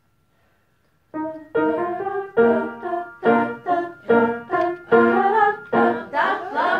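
Piano playing a run of short, detached chords, starting about a second in, with voices coming in near the end.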